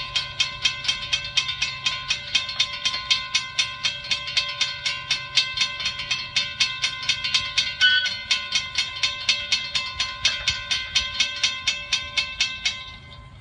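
Railroad crossing warning bell ringing in rapid, evenly spaced dings while the crossing gates lower; it stops abruptly near the end.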